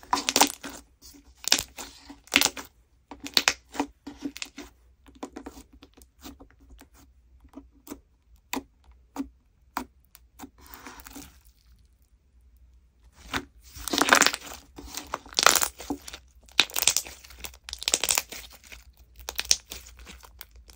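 Glossy slime being poked, squeezed and kneaded by hand: wet squelching with irregular runs of sharp crackling clicks and pops. The clicks grow louder and denser about two-thirds of the way through.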